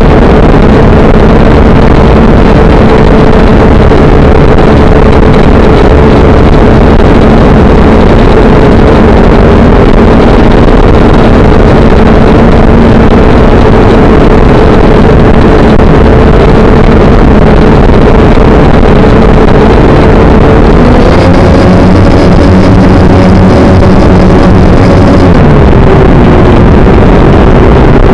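Motors and propellers of a small camera-carrying drone heard from on board: a very loud, steady whine over heavy buzzing noise. The pitch steps up about three quarters of the way through as it climbs, then drops back near the end.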